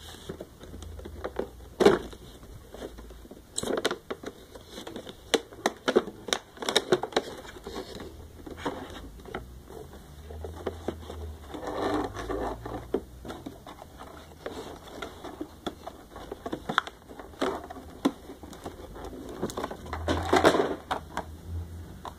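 Clear plastic blister packaging and the cardboard box being handled: irregular crinkling, crackling and clicking of the plastic under the fingers, with a few louder bursts of crinkling.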